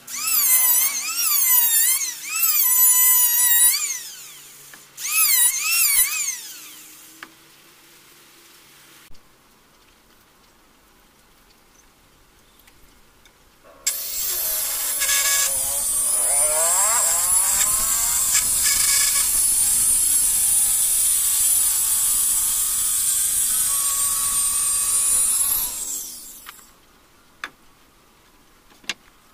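An electric hand planer whines in short passes over a teak beam, its pitch wavering as the blades bite. After a pause, a circular saw starts abruptly and runs for about twelve seconds, cutting along the teak beam, then winds down when switched off.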